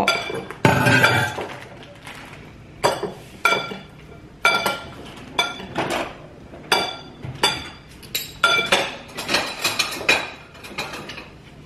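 Kitchen utensils and dishes clinking against glassware: a string of sharp clinks, each with a brief ringing tone, about one every half second to second, with a longer clattering rustle about a second in.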